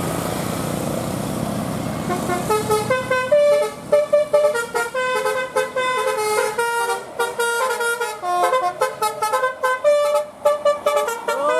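Vehicle rumble, then a bus's Basuri telolet musical horn plays a fast melody of short stepped notes, starting about two and a half seconds in. Near the end one note swoops up and down.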